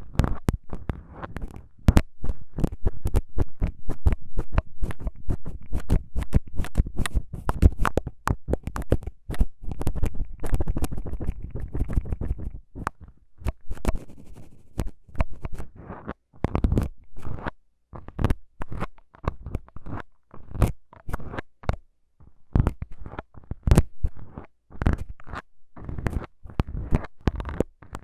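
Two plastic syringes with needles worked right at a pair of microphones: rapid, irregular close-up clicking and scratching with a low rumble underneath. The clicks come in thinner, gappier runs a little past the middle.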